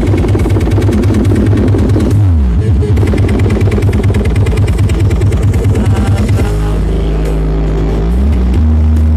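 Stacked sound-system speakers playing loud electronic bass music: fast pulsing bass broken by falling pitch sweeps, changing about six and a half seconds in to long held bass notes.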